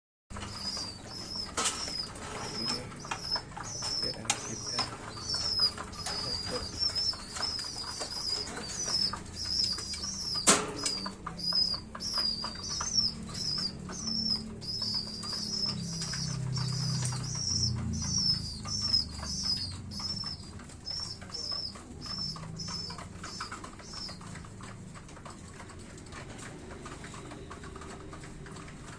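Small bird chirping over and over, about two short, wavering high chirps a second, with a few sharp clicks in between; the chirping stops near the end.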